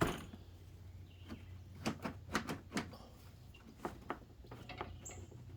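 Light clicks and knocks of hand work on the truck's parts, in a cluster about two seconds in and a few more later, over a steady low hum.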